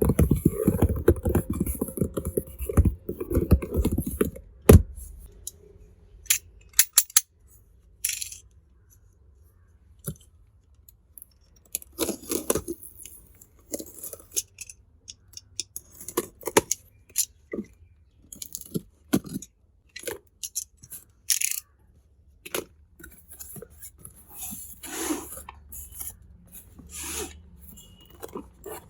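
Packaging being torn and crinkled open for about the first four seconds, then scattered light clicks and short rustles as small toy kitchen pieces are handled and unwrapped.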